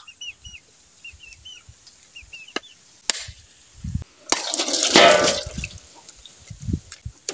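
A bolo knife chopping into a husked coconut with a few sharp strikes, then the coconut water splashing out into a metal basin for about a second, the loudest sound, just past the middle.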